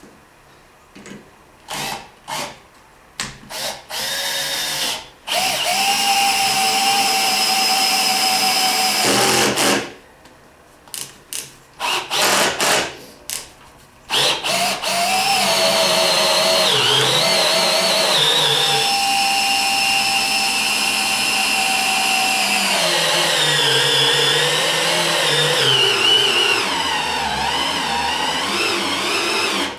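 Cordless drill motor whining in short trigger bursts, then in longer runs as it bores into wooden blocks. In the last long run the pitch wavers and sags as the bit loads up in the wood.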